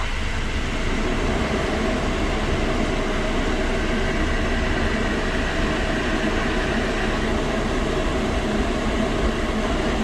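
Hyundai Creta's raised front wheel spinning in fourth gear off the ground, making a steady drone from its worn wheel bearing over the running engine. The bearing is damaged, which the mechanic puts down to a drive shaft nut left loose after an axle change.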